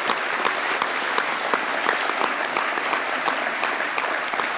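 Conference audience applauding steadily, many hands clapping at once without a break.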